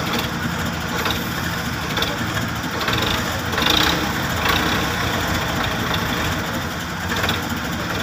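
Road roller's diesel engine running steadily.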